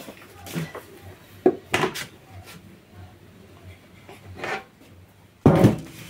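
Large round metal baking tray being wiped with a cloth and handled: scattered scrapes and light knocks, with a louder clatter near the end as the tray is lifted.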